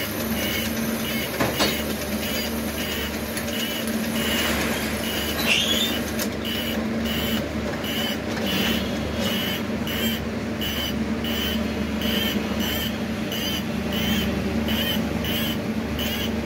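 Motorcycle cylinder boring machine running: a steady motor hum with a short, high-pitched tick repeating about twice a second.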